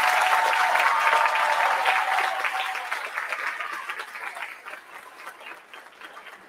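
Audience applauding, loud at first and dying away over the last few seconds, with a long held note sounding over the clapping for the first couple of seconds.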